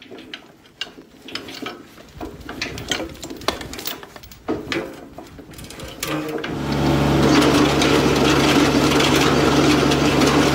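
Gloved hands pull tangled roots, sticks and a steel log chain out of a rotary tiller's tines: rustling, scraping and metal clinks. About six seconds in, the tractor-driven tiller starts up and runs steadily, its tines spinning with a constant hum.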